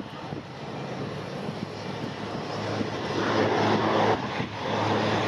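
Cessna 208B Grand Caravan's single Pratt & Whitney PT6A turboprop at climb power just after takeoff. It grows louder as the plane comes overhead, and a steady low propeller hum comes in about halfway through.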